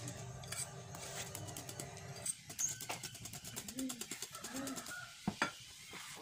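Wire whisk beating chocolate cake batter by hand in a ceramic bowl, the wires ticking quickly against the bowl. A dove coos twice in the background about four seconds in, and a couple of sharp clicks come near the end as the whisk is laid down in the bowl.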